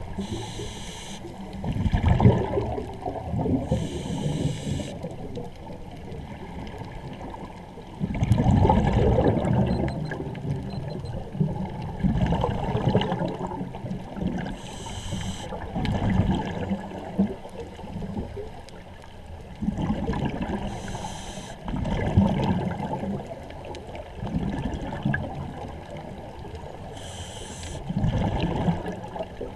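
Scuba regulator breathing heard underwater: a short hiss on each inhale, then a loud bubbling gurgle as each exhale vents, repeated every several seconds.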